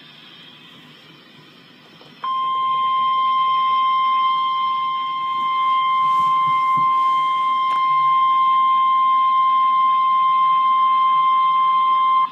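Emergency Alert System attention tone for a tornado warning: the single steady 1050 Hz weather-radio alert tone. It starts suddenly about two seconds in, holds unchanged for about ten seconds and cuts off abruptly. Before it there is only a faint hiss.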